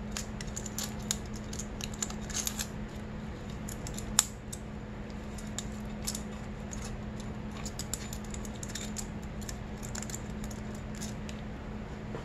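Light metallic clicks and scrapes of feeler gauge blades being slid between the intake cam lobes and valve buckets of a 2006 Honda CRF250R cylinder head, checking valve clearance, with one sharper click about four seconds in. A steady low hum runs underneath.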